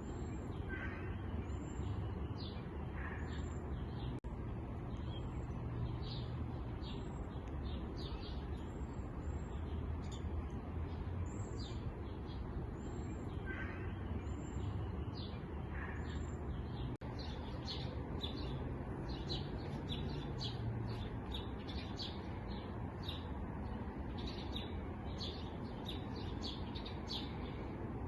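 Small songbirds chirping and twittering: many short, high chirps in quick succession, getting busier about halfway through, with a few lower calls in the first half. A steady low rumble runs underneath.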